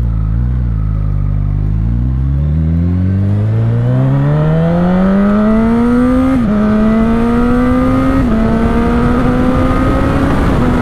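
Honda CB1000R inline-four engine accelerating hard, its pitch climbing steadily and then stepping down slightly three times, about two seconds apart: quick clutchless upshifts through the factory quick shifter under full acceleration.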